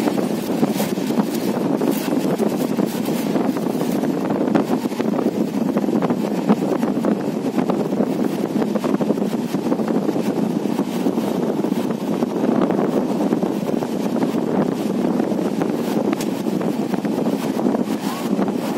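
Steady wind rushing over the microphone at the open window of a moving train, over the train's running noise, with no break or change.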